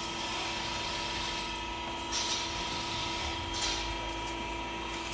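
Steady hum of tire-shop machinery, with two short hisses of compressed air from a pneumatic tool about two seconds and three and a half seconds in.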